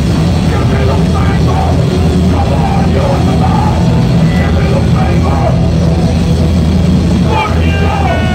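Loud live punk rock band playing, with a heavy, steady low end and a voice wavering over it. Near the end a long held note starts.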